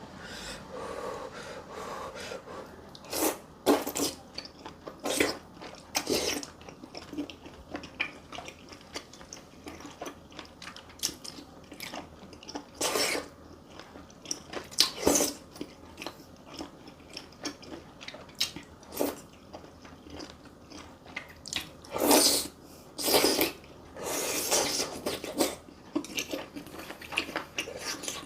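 Close-miked chewing and biting of food, with irregular sharp wet mouth smacks and crunches.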